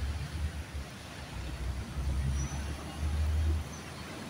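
Street traffic on a wet road: cars passing with tyres on wet pavement, and an uneven low rumble throughout.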